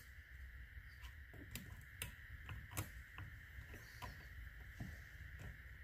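Faint, scattered light metallic clicks and ticks of a piston ring and ring expander tool against a new aluminum piston as the ring is spread and worked over the piston toward its groove.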